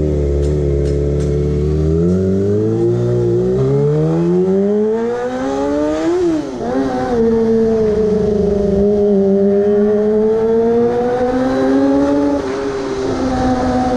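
Kawasaki Ninja ZX-25R's 250 cc inline-four engine running through a loud Austin Racing aftermarket exhaust while the bike is ridden, heard from the rider's seat. The engine pitch climbs steadily for a few seconds and falls sharply about six seconds in. It then holds fairly steady, with a brief dip near the end.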